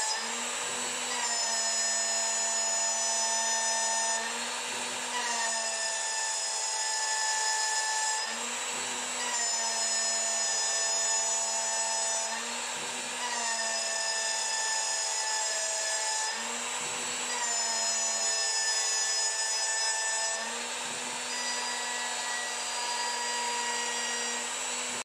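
CNC milling spindle driving an end mill through aluminum at a 70 mil depth of cut, a steady whine made of several tones. The pitch changes together about every four seconds as the cut goes through repeated passes.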